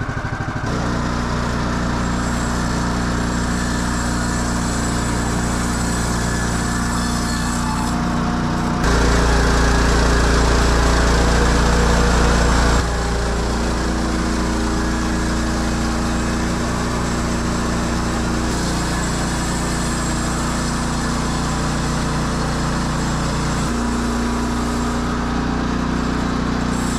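Portable band sawmill's small gasoline engine running steadily. It changes pitch suddenly several times and is louder for about four seconds near the middle.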